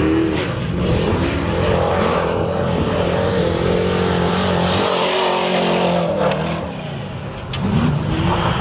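Offroad race truck's engine revving hard, its pitch rising and falling again and again as the truck slides through a dirt corner and passes. It dips briefly about seven seconds in, then picks up again near the end.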